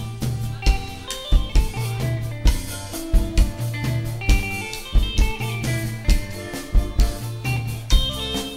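Live dance band playing: electric guitar over a steady drum-kit beat with keyboard, the kick drum landing about twice a second.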